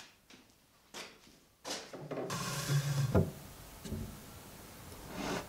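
Wooden sliding cabinet doors being slid along their track: a rubbing slide of about a second and a half that ends in a knock as the door stops, with a lighter knock before it and quieter rubbing after.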